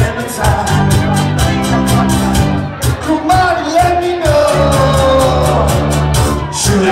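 A live band playing loudly, with a voice singing over guitars and a steady drum beat.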